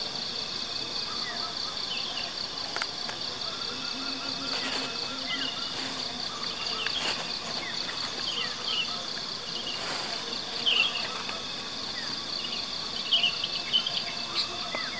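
A steady chorus of insects trilling in a fast, even pulse, with many short bird chirps scattered through it. The chirps are loudest about eleven seconds in and again near the end.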